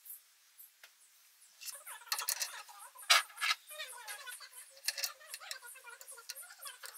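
Irregular light metallic clicks, clinks and scrapes, like small metal parts being handled; the sharpest clink comes about three seconds in.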